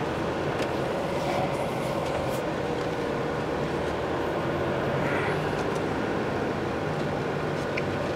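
Diesel engine of a Fiat Ducato-based motorhome running at low speed as the van rolls slowly forward, heard from inside the cab as a steady hum with road noise.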